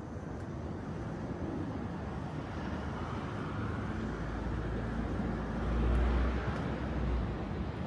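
A motor vehicle passing along the street: a low engine rumble and tyre noise build up and are loudest about six seconds in, then ease off.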